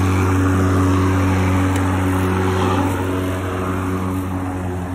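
Erbauer ELM18-Li 36V cordless lawnmower running, its electric motor and spinning blade giving a steady low hum as it is pushed over the lawn cutting grass.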